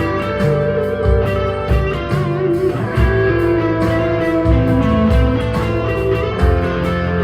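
Electric guitar played through the P90 neck pickup of a Firefly goldtop, a warm, sustained lead over a backing with low bass notes and a steady beat.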